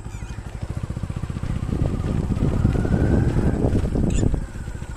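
A small engine running close by with a rapid, steady beat, getting louder about two seconds in, with a faint whine rising in pitch in the middle.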